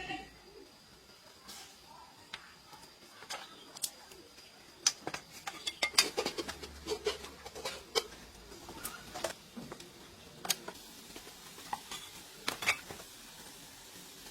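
Dishes and utensils clinking and knocking: scattered sharp clicks and clatters, busiest between about five and eight seconds in.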